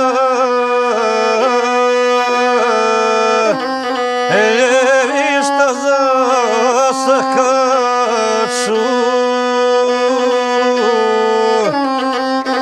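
Gusle, the single-string bowed folk fiddle, played solo: a melody full of quick wavering ornaments over a held low note, broken by short pauses between phrases about a third of the way in and again near the end.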